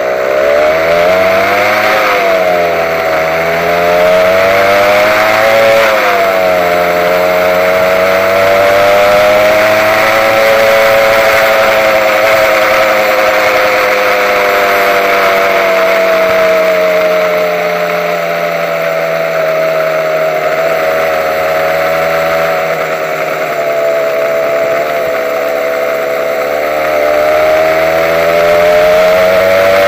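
Honda NSR150's two-stroke single-cylinder engine running under way, its pitch rising and falling with the throttle: it climbs twice in the first few seconds, holds fairly steady through the middle and rises again near the end.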